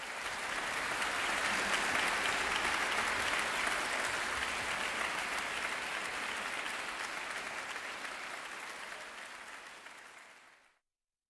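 Concert-hall audience applauding, loudest early on, then slowly dying away and cut off abruptly near the end.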